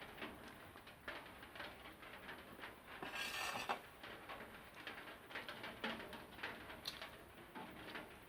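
Close-miked eating sounds: many small wet mouth clicks and smacks of chewing rice and egg curry, with a louder brief noise about three seconds in.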